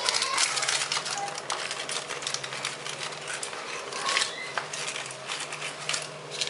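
Baking paper crinkling and rustling in quick, irregular crackles as it is wrapped tightly around a rolled Swiss roll cake.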